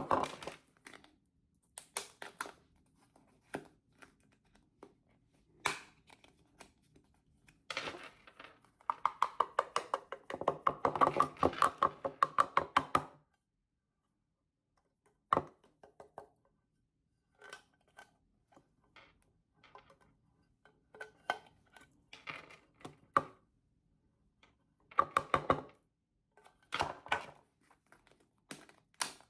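Black pepper being refilled from small containers into a larger one: scattered clicks and taps of lids and containers being handled, with a dense run of rapid ticking from about eight seconds in that lasts around five seconds.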